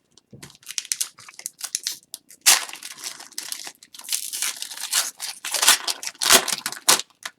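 Foil wrapper of a hockey card pack tearing and crinkling as it is opened and handled, in crackly bursts that are loudest about two and a half seconds in and again near the end.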